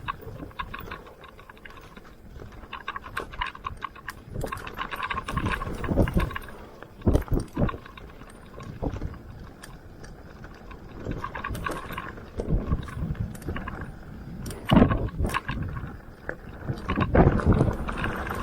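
Mountain bike ridden over a rough dirt trail: irregular thuds and clattering rattles from the tyres, suspension and chain over bumps, over a steady rolling noise.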